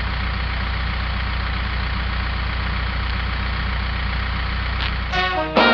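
Tractor engine idling steadily with a low rumble. Brassy swing music comes in about five seconds in.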